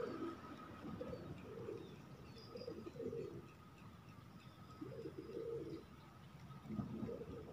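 A bird cooing: low calls repeated in short groups of two or three notes, with faint chirps behind.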